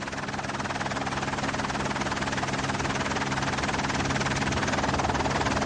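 Helicopter rotor chop over a steady engine hum, a fast even beat that grows slowly louder.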